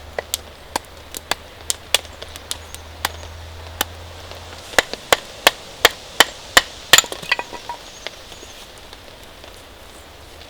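Wood being chopped or split with sharp knocking strikes: scattered single blows, then a quick run of about seven strikes roughly three a second, ending in a short cluster of cracking snaps.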